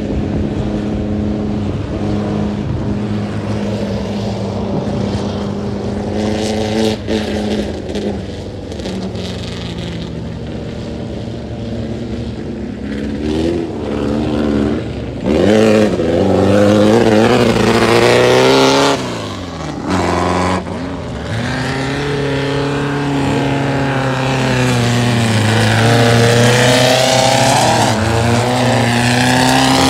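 Engines of Volkswagen-powered tubular off-road buggies racing, revving up and dropping back as the buggies accelerate and pass, so the pitch climbs and falls again and again. Louder in the second half, with the strongest revving about halfway through and again near the end.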